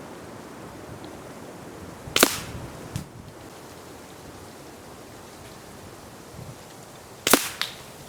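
Two shots from an RTI Prophet .30 PCP air rifle, sharp cracks about five seconds apart, each followed by a fainter click under a second later.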